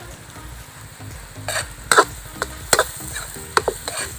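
Mussels in their shells being stirred with a spatula in a large metal wok of garlic butter: shells clatter and the spatula scrapes the pan in several sharp strokes starting about a second and a half in, over a low sizzle.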